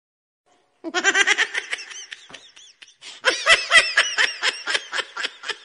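A person laughing in rapid repeated bursts, starting about a second in. There is a brief lull a little past two seconds, then the laughter picks up again, louder.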